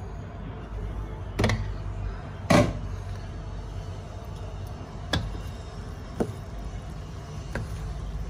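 A wooden spatula knocking against a pan of vegetables in steaming broth as they are stirred: five sharp knocks, the loudest about two and a half seconds in, over a steady low hum.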